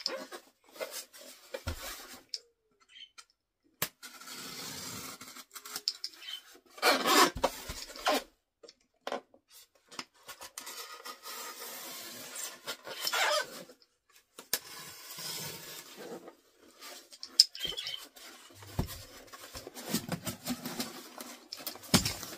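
Utility knife cutting the packing tape on a styrofoam shipping box: irregular scraping strokes of the blade along the foam and tape, broken by sharp clicks. Near the end the box is opened and crumpled newspaper packing rustles.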